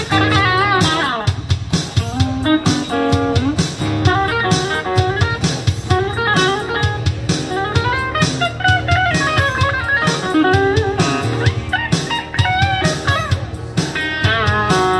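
Live blues-rock instrumental break: an electric guitar plays a lead line with bent, gliding notes over a strummed acoustic guitar.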